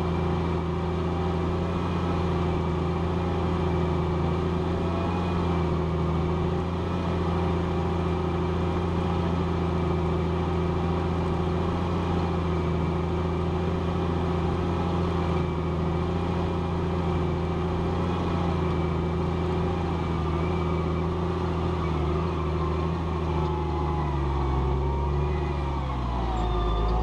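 Challenger MT765B tracked tractor's diesel engine running steadily under load while pulling a plough. Near the end the engine note drops and wavers.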